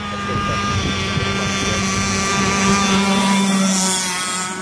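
Gizmo 30cc two-stroke gas engine of a radio-controlled speedboat running at speed, a steady buzz that dips slightly in pitch near the end as the boat passes close by.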